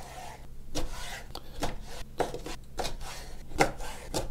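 Kitchen knife slicing a cleaned squid on a wooden cutting board, the blade knocking on the board in quick uneven strokes, about three a second, starting a little under a second in.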